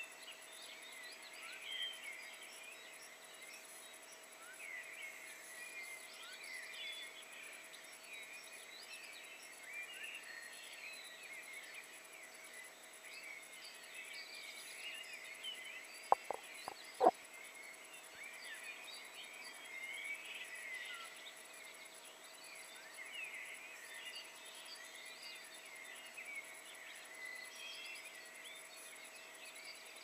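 Morning chorus of many songbirds: dense, overlapping short chirps and quick whistled glides, over a faint steady hum. Three or four sharp clicks come close together just past the middle.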